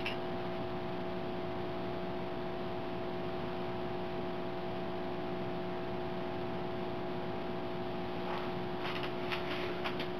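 Steady electrical hum over a low hiss, with a few short, faint sounds near the end.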